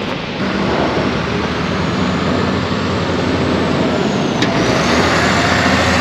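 Engine running steadily: a low hum under a broad rumble that grows slightly louder, with one short click about four and a half seconds in.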